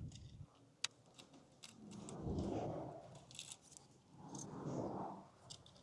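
Small metal clicks and light jingling of nuts, bolts and a hex key being handled while bolts are fitted loosely to a fender, with one sharp click about a second in and two longer, softer swells of noise about two and four and a half seconds in.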